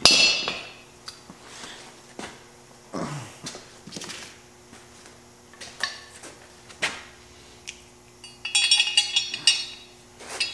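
Metal car parts and tools being handled: a loud ringing clank right at the start, scattered knocks, and a burst of metallic rattling and clinking about eight and a half seconds in. A faint steady hum runs underneath.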